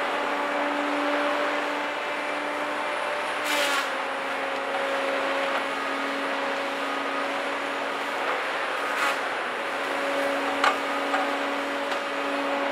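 Cat 521 track feller buncher working with its HF201 felling head: a steady mechanical whine over a dense rushing noise, dropping slightly in pitch about three and a half seconds in. A few brief cracks cut through it, the sharpest about ten and a half seconds in.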